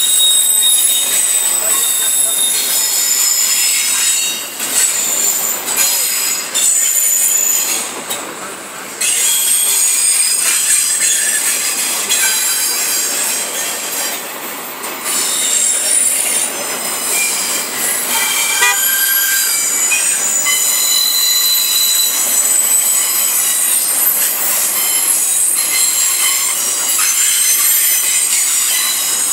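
Double-stack intermodal freight train rolling past close by. Its steel wheels squeal in shifting high-pitched tones that come and go over the steady rolling clatter of the cars.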